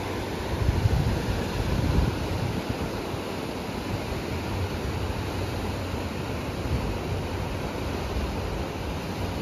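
Ocean surf washing against rocks, a steady rushing, with wind rumbling on the microphone in gusts that are strongest in the first two seconds.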